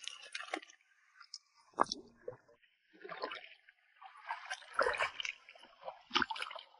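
Shallow tide-pool water splashing and sloshing in irregular bursts as rocks and bricks are turned over by hand, with a few sharp knocks.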